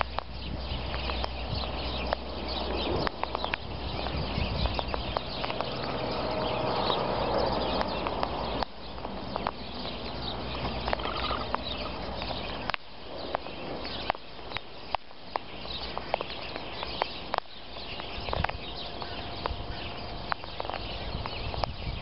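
Sulphur-crested cockatoos feeding on birdseed close to the ground: irregular sharp clicks and taps of beaks pecking and cracking seed and feet on the grain, with faint bird chirps in the background. A low rumble of wind on the microphone fades out about eight seconds in.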